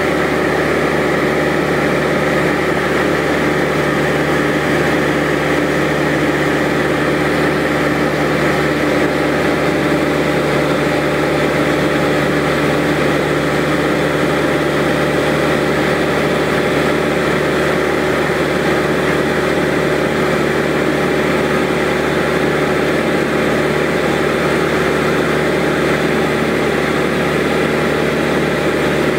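Light aircraft's engine and propeller droning steadily at cruise, heard from inside the cabin.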